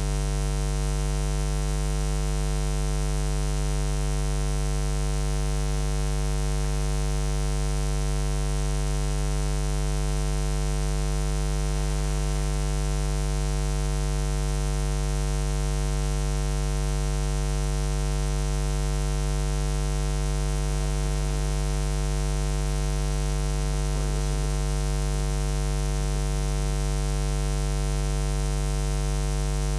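Steady electrical mains hum, a low buzz with a stack of overtones that does not change.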